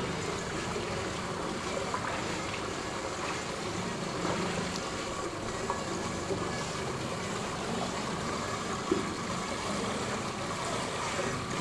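Steady rushing background noise, with a few faint clicks and a short knock about nine seconds in.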